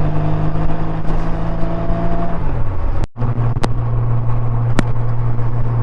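A 1989 motorcycle's engine running under way, with wind noise on the helmet mic. About two and a half seconds in, the engine note falls. The sound cuts out for an instant, then the engine runs on at a steady lower note, with a couple of sharp clicks.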